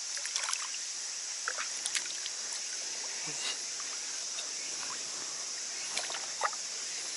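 Shallow water sloshing and dripping, with a few small splashes, as a hand releases a black bass into the water at the shore. A steady high insect hiss runs underneath.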